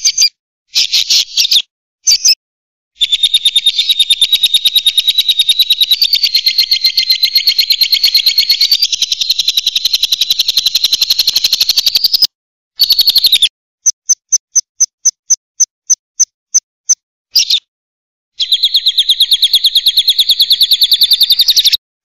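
Lovebird chattering: shrill, rapid trains of chirps. A long fast run lasts several seconds, then separate chirps come about four a second, then another fast run starts near the end. The calls stop and start abruptly, as in an edited lure recording.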